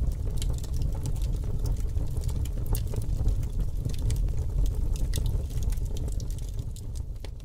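Gas stove burner flame burning with a steady low rumble and scattered sharp crackles, fading near the end.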